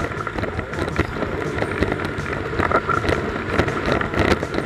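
Wind buffeting a board-mounted action camera's microphone over the rush and spray of water as a windsurfer planes fast across chop, with frequent sharp knocks from the board hitting the waves.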